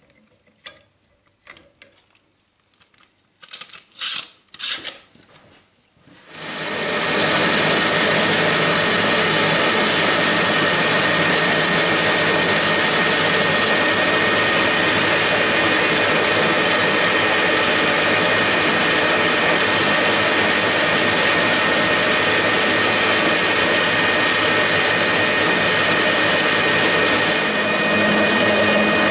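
Metal-turning lathe starting up about six seconds in and then running steadily, its motor and gears giving a loud even whine with several steady tones. Before it starts there are a few sharp clicks and knocks from setting the work in the chuck, and near the end the sound takes on a low hum as a hand file is held against the spinning workpiece.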